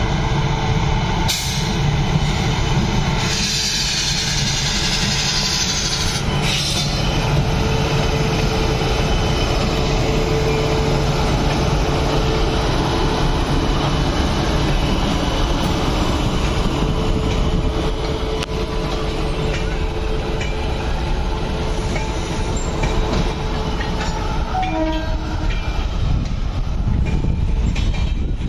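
WAP-7 electric locomotive and its passenger coaches pulling slowly out of a station past the listener: a steady rumble of wheels on rail. A steady hum runs through about the first half, and a few short high tones come near the end.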